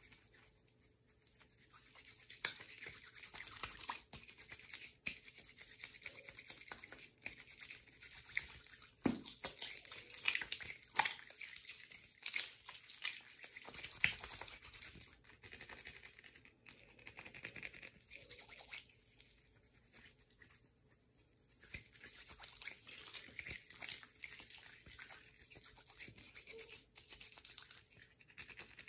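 Soap-lathered hands rubbing and scrubbing together, a quiet continuous wet rubbing with scattered small clicks.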